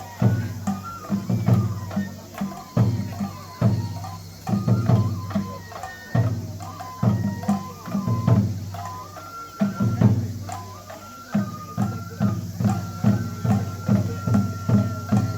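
Japanese festival hayashi music for a lion dance: taiko drum strokes under a bamboo flute melody. In the second half the drum settles into an even beat of about two strokes a second while the flute holds one long high note.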